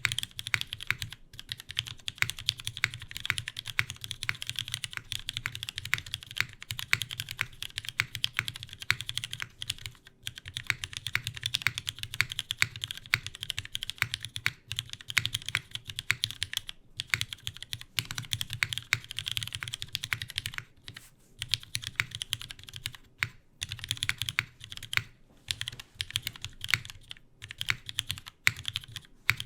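Fast, continuous typing on a CW88 custom mechanical keyboard with lubed, filmed Cherry MX Vintage Black linear switches on a full polycarbonate plate and GMK keycaps, with a few brief pauses between bursts of keystrokes.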